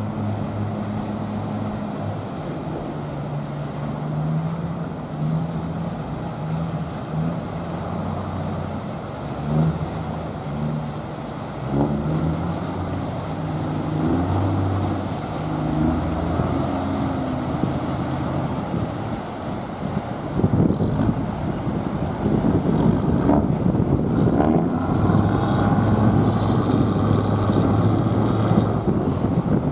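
Small passenger ferry's engine running with a low hum as the boat passes close. About two-thirds through, the noisy churn of its propeller wash grows louder as it manoeuvres alongside the pier.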